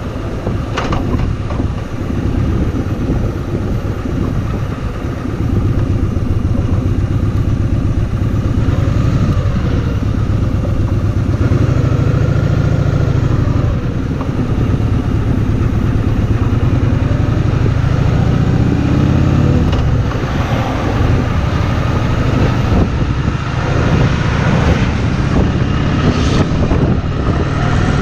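Kawasaki VN2000 V-twin motorcycle engine running steadily while the bike is ridden.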